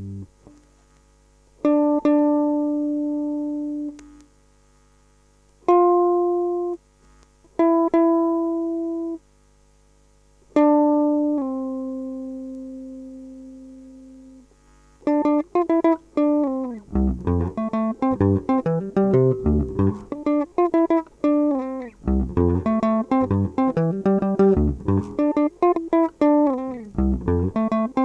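Guitar playing a few slow single notes, each left to ring and fade, then about halfway through breaking into a fast picked sungura-style line, with a bass guitar coming in underneath shortly after.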